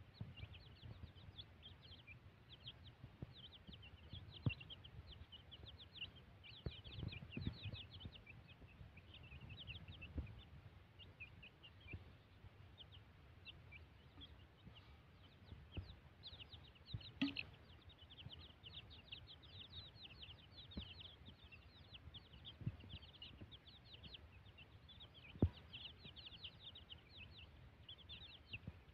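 A brood of baby chicks peeping continually, many short high cheeps a second, as they feed together. A few sharp clicks stand out now and then, the loudest near the end.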